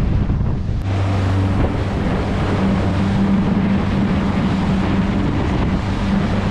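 Twin Yamaha 115 outboard motors running steadily with the boat under way, a low even hum, mixed with wind buffeting the microphone and the rush of the wake.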